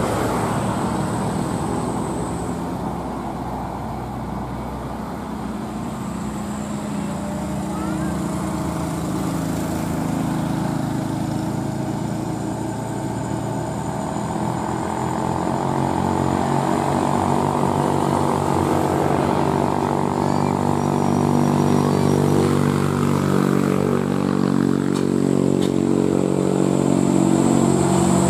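Loaded Mitsubishi Canter sand dump truck's diesel engine pulling hard up a hill, a steady engine drone that grows louder as the truck approaches.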